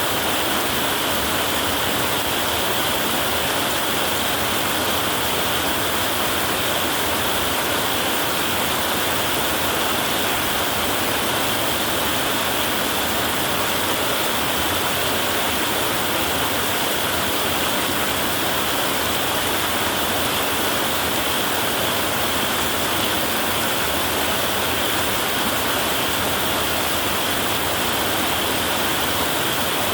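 Heavy rain falling steadily on a tin roof, an even, unbroken hiss with no thunder.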